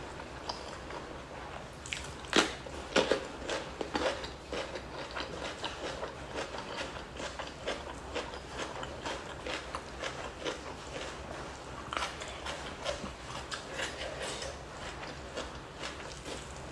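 Close-miked eating sounds: chewing and mouth clicks from a mouthful of rice and fish skin, with a few sharp, crisp bites about two to four seconds in.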